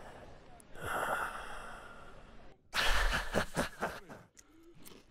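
Close crunching and chewing of food, with a louder, choppy burst of crunching about three seconds in.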